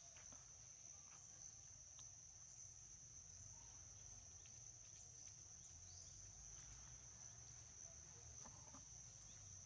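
Faint, steady high-pitched chorus of insects, a constant shrill drone, with a few faint ticks and rustles.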